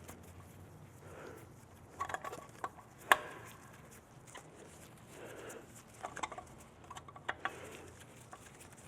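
Scattered light clicks and taps of small hard parts being handled and set in place during reassembly of a chainsaw muffler, with the sharpest tap about three seconds in.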